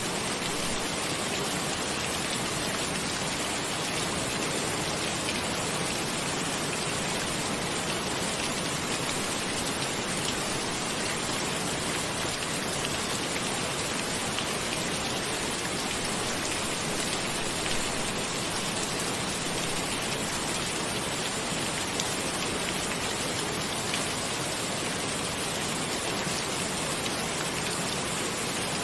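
Steady rain falling, an even continuous hiss with a few slightly louder drop taps here and there.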